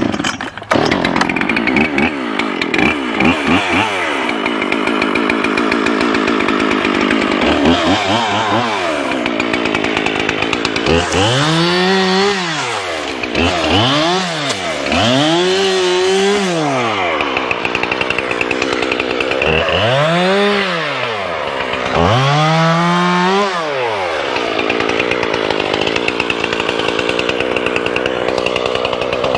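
Two-stroke chainsaw running at high speed, its engine pitch swinging up and down five times in the middle before settling steady again.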